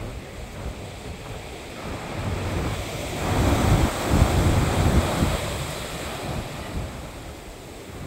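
Sea waves breaking on a beach, one wave building and crashing about three seconds in, then its wash slowly fading, with wind buffeting the microphone.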